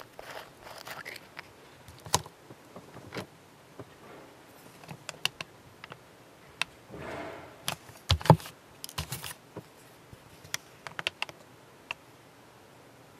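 Scattered small clicks and taps from handling a small glass paint jar with a plastic screw cap and a fine paintbrush, with a short rustle about seven seconds in and a louder knock about a second later.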